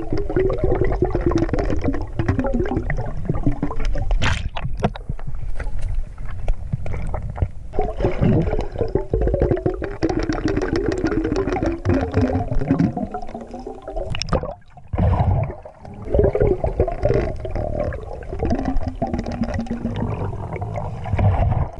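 Muffled sound recorded with the camera under the river's surface: a heavy low rumble of moving water and gurgling, with low wavering tones and small clicks. It dips quieter briefly about two-thirds of the way through.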